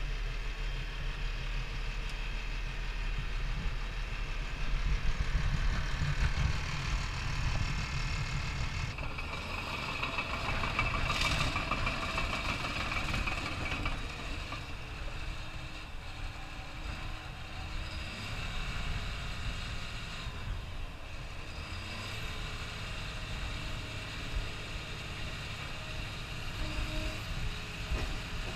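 Caterpillar D6K2 track-type tractor (bulldozer) running and moving: a steady diesel engine rumble with a higher whine above it, which grows louder for a few seconds about ten seconds in.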